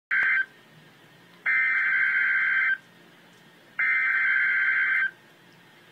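Emergency Alert System SAME header: digital data tone bursts, a short one at the start and then two longer ones about a second apart, announcing a severe weather alert.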